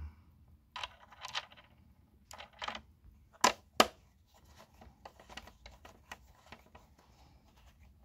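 Faint scattered clicks and rustling from hands working on the tipped-back vacuum cleaner's plastic base, with two sharp clicks about three and a half seconds in.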